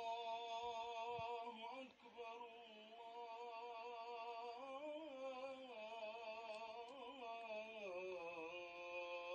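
Islamic call to prayer (adhan) sung by a muezzin: long, melismatic held phrases with a wavering, slowly gliding pitch, with a short break about two seconds in.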